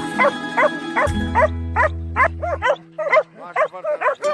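Podenco Canario hunting dogs yelping over and over, several short yelps a second, each rising then falling in pitch, as they work a rabbit hidden in a stone wall. Background music with held tones and a low bass note runs underneath; the bass drops out about two-thirds of the way through.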